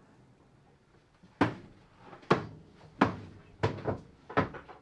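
A run of five sharp knocks, about one every three-quarters of a second, each dying away quickly; the fourth has a smaller knock close behind it.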